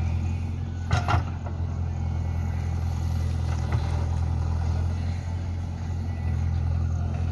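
JCB backhoe loader's diesel engine running steadily at a low even pitch, with a short knock about a second in.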